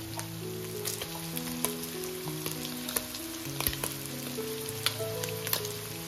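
Boiled mutton and onions frying in oil in a pan, sizzling steadily with scattered sharp pops. A slow background melody of long held notes plays along.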